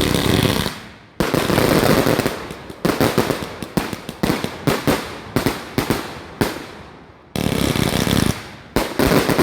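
A large firework cake, one the uploader says was malfunctioning, firing off volleys of rapid, loud cracking pops. There are several bursts, each a second or two long, with short lulls about a second in and again about seven seconds in.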